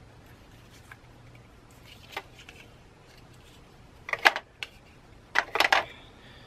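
Small plastic ink pads clacking against each other and against a hard plastic caddy tray as they are set in and stacked. A few faint taps come first, then two clusters of quick clicks in the second half, the later one louder.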